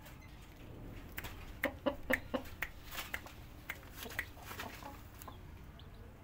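Aseel chicken clucking: a run of short, sharp clucks from about a second in until about five seconds in.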